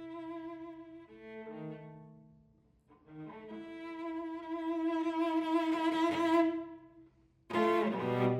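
Solo cello bowed in a slow phrase. A long held note with vibrato swells louder and stops, and after a short gap a sudden loud, forceful attack comes near the end.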